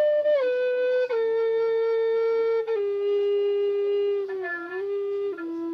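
Native American flute (siyotanka) playing a slow melody of long held notes that step downward in pitch, with a brief bend just before it settles on the last, lowest note.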